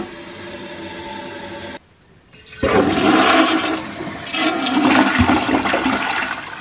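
A toilet being flushed: water rushing and swirling down the bowl from a little over two seconds in, for about four seconds, with a brief dip in the middle. It is the test flush of a toilet just reset on its flange with a new gasket and a new supply line.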